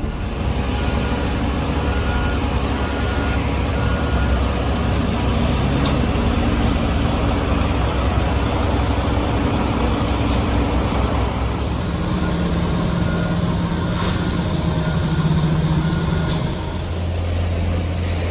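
Heavy construction vehicle's diesel engine running steadily, with short evenly spaced reversing-alarm beeps in two spells and a few sharp clicks.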